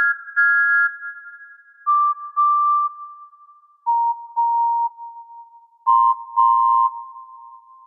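Imitation steam engine whistles played on a synthesized instrument: four whistles about two seconds apart, each a short toot followed by a longer one, each at a different pitch, starting highest, the first and last sounding two notes at once.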